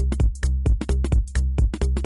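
Background electronic dance music with a steady, fast beat and heavy bass.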